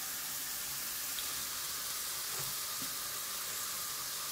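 Food frying in a pan: a steady sizzle.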